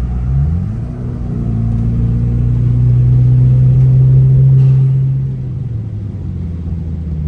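Hyundai Genesis Coupe's engine heard from inside the cabin under acceleration. The revs climb sharply in the first second, hold and build for a few seconds, then drop back about five seconds in as the throttle eases.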